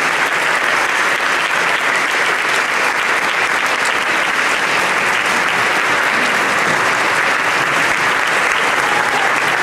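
Audience applauding steadily in a hall after a choir performance.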